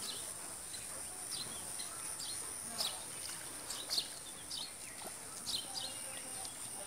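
Rural outdoor ambience: a steady high-pitched insect drone with small birds chirping in short, sharp notes, a dozen or so, at irregular intervals.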